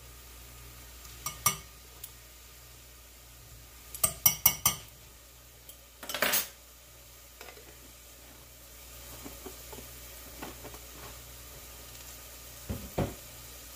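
A metal utensil clinking and tapping on a stainless steel saucepan, with a quick run of four taps about four seconds in, as minced garlic goes into onion in olive oil. A short rush of noise follows, then a faint sizzle of the onion and garlic in the oil, and a thump near the end.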